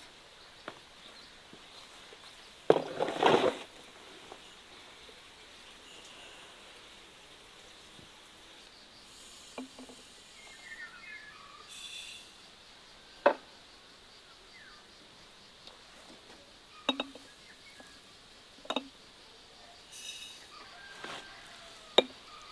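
Sugar and fruit being handled in large glass jars: a short noisy clatter about three seconds in, then four or five sharp clinks a couple of seconds apart. Faint insects and a few small bird chirps sit underneath.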